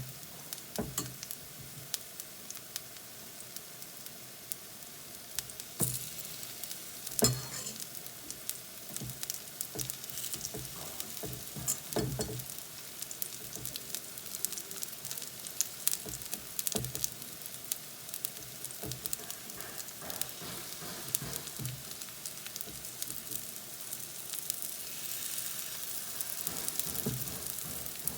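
Chickpea-flour-battered plantain slices frying in hot oil in a pan: steady sizzling with dense crackling, and a few knocks in the pan, the loudest about seven seconds in.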